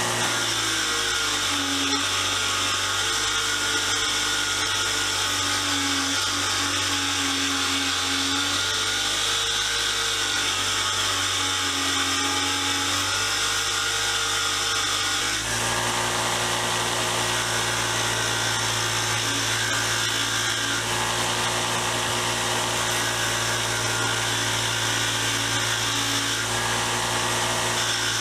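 Motor-driven wire wheel running steadily, brushing a screwdriver's metal shaft clean to a brushed finish. The sound shifts about halfway through as the work is moved on the wheel.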